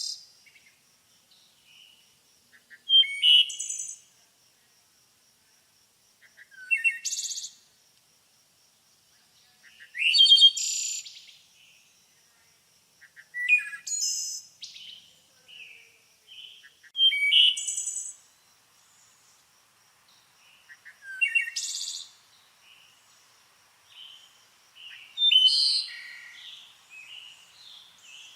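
A songbird singing short high-pitched phrases of about a second each, repeated every three to four seconds, with softer chirps in between.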